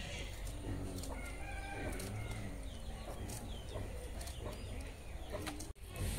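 Domestic chickens clucking and calling in a string of short calls, with the sound cutting out for an instant near the end.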